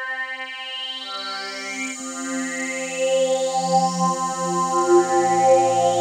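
Waldorf Microwave XT wavetable synthesizer playing sustained chords that change about every second, with rising sweeps through its upper overtones, carried on a touch of plate reverb.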